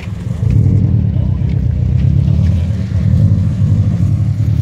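A car engine running steadily at idle with a deep, loud exhaust rumble.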